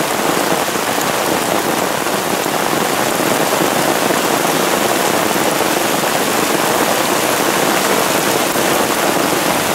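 Heavy rain falling steadily on a tarp and the grass around it, with runoff pouring from the tarp's corner into a nearly full 5-gallon plastic bucket.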